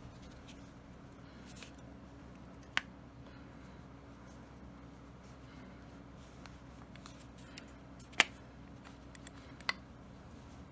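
Sharp clicks of Beretta A400 shotgun parts being handled during disassembly and cleaning: a single click about three seconds in, a loud one about eight seconds in, then three small clicks close together near the end, over a steady low hum.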